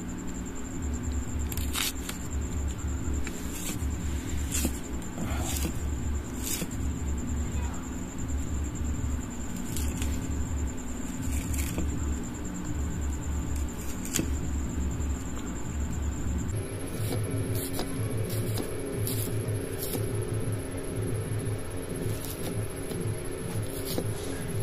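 Onion being sliced by hand on a boti, a floor-mounted blade, giving short scattered cutting clicks that come more often in the last third. Under it runs a steady low throbbing hum and a thin high whine that jumps higher about two-thirds of the way through.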